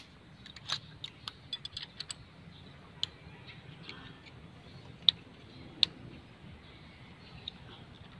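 Scattered light metallic clicks and taps of hand tools on an Isuzu 4BE1 engine's valve gear while the valve clearances are being set, several in quick succession in the first two seconds, then a few sharper single clicks.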